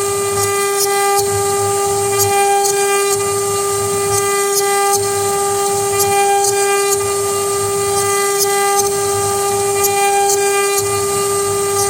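CNC router spindle running at a steady high-pitched whine while carving, with a low pulsing about once a second as the head sweeps back and forth across the work.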